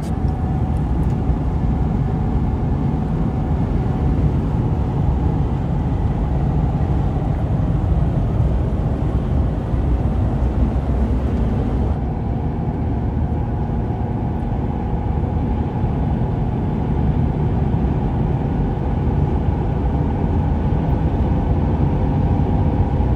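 Steady road and engine rumble inside a moving pickup truck's cab. The higher hiss thins abruptly about halfway through.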